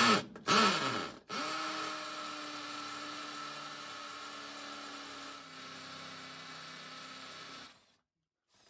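Hammer drill boring through a concrete block wall: a short burst, then the motor runs with a steady whine that sinks slightly in pitch for about six seconds before cutting off.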